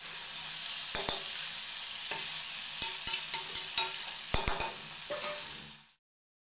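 Chicken sizzling as it fries in oil in a steel kadai, while a metal spoon stirs it and knocks and scrapes against the pan in a dozen or so sharp clicks. The sizzle cuts off suddenly near the end.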